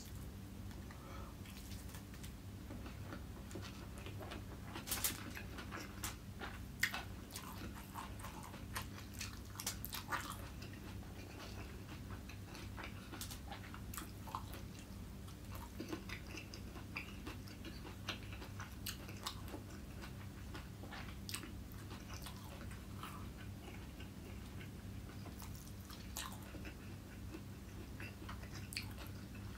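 Close-miked chewing of fried rice eaten by hand: soft, irregular mouth clicks and wet smacks, a little busier in the first third. A steady low hum runs underneath.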